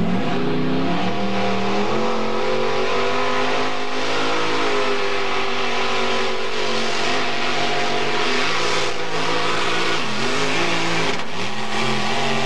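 Mini pulling tractor's engine at full revs under load as it drags a weight-transfer sled down the dirt track. The revs climb in the first second, hold high, then dip and surge back up a few times near the end.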